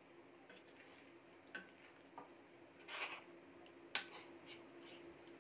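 Slotted steel spoon stirring a watery potato and raw papaya curry in a steel kadhai: a few light clinks of spoon on pan and soft liquid sounds of the simmering curry, the sharpest clink about four seconds in, over a faint steady hum.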